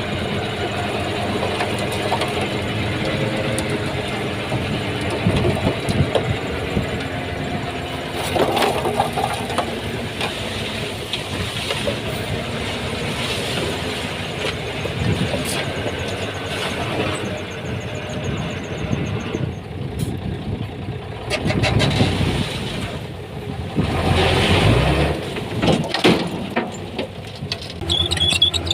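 Diesel earthmoving machinery at work: a bulldozer and dump trucks running with the engine note rising and falling under changing load, with scattered metallic clanks and rattles.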